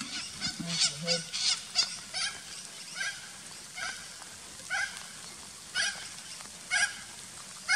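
Short honking animal calls repeating roughly once a second.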